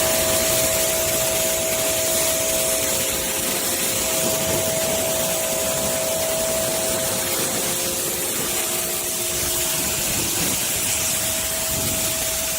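Pressure washer spraying water through a Sooprinse 3000 PSI gun: a steady hiss of the high-pressure jet, with the washer's pump running as a steady tone underneath.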